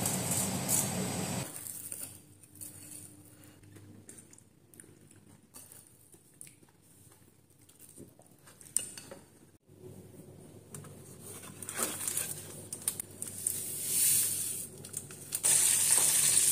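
Hot oil sizzling in a small pan as a deep-fried croquette is lifted out, cutting off after about a second and a half into a quiet stretch with a few light clicks. Near the end the used frying oil sizzles loudly again as it is stirred with a wooden stick.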